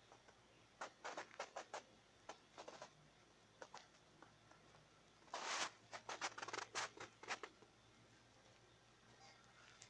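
Faint, irregular small clicks and scratches in short clusters, with one longer scrape about halfway through, over a low steady hum.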